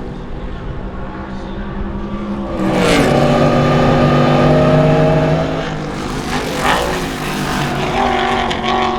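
Maserati Tipo 151's 4.0-litre double overhead cam V8 race engine running on track; it climbs in revs about three seconds in, holds at its loudest for a couple of seconds, then eases off.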